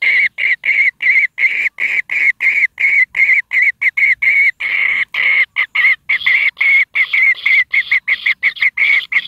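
Kingfisher nestlings in their burrow nest giving a rapid, unbroken series of short, shrill begging calls, about four a second.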